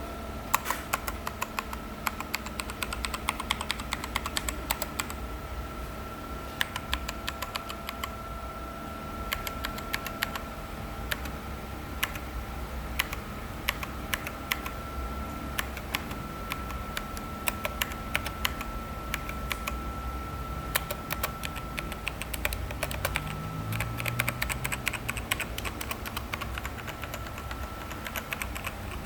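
Typing on an Azio MK-MAC-U01 mechanical keyboard with K-Switch keys: runs of quick, sharp key clicks with short pauses between them.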